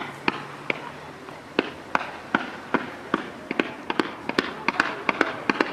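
Fireworks firing a quick series of shots, sending comets up in a fan, with sharp pops about two or three a second that come faster near the end.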